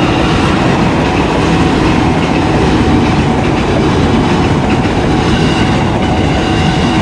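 A twelve-car JR 205 series electric commuter train passing close by, its wheels running loudly and steadily over the rails.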